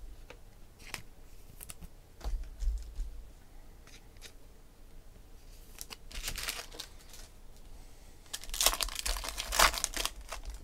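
A few light clicks of cards being handled, then a baseball card pack's wrapper rustled about six seconds in, and louder crinkling and tearing near the end as the pack is torn open.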